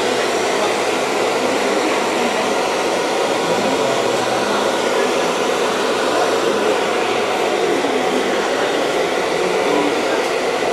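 Handheld hair dryer blowing steadily while hair is styled.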